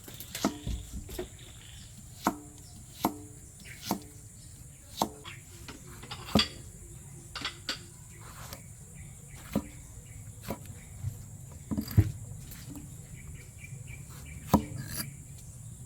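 A knife chopping on a wooden board in single, irregular strokes about once a second, with insects droning steadily.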